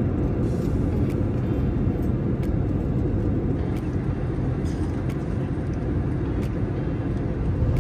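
Steady low rumble of jet engines and rushing air heard inside the passenger cabin of an Airbus A321neo in cruise, with a few faint clicks.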